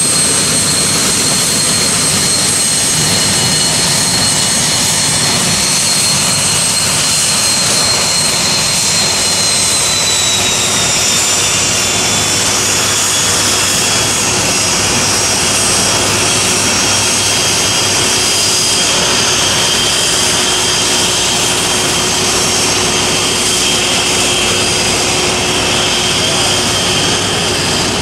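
Cessna Citation II business jet taxiing, its twin Pratt & Whitney JT15D turbofans giving a steady high whine over a rushing exhaust noise. The whine drops slightly in pitch about ten seconds in as the jet rolls past.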